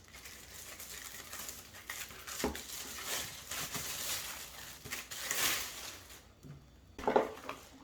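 Packaging being handled during unboxing: intermittent rustling of plastic and foam packing with a few light knocks, the loudest rustle about five seconds in.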